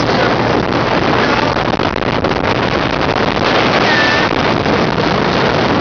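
Motorized passenger boat under way on open sea: the steady noise of its running engine and rushing water, mixed with wind buffeting the microphone.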